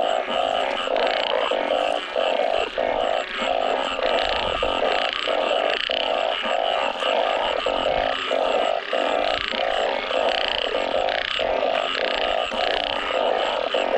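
Dense chorus of many frogs calling at once after heavy rain, overlapping calls pulsing a couple of times a second without a break.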